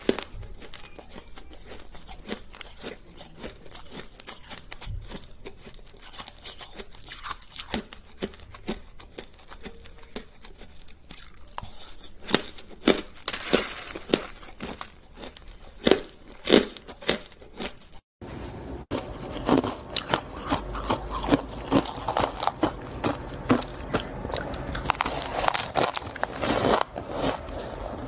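Close-up mouth sounds of someone biting, crunching and chewing frozen shaved ice in quick, irregular crunches. There is a brief break about two-thirds of the way in, after which the crunching is louder and denser.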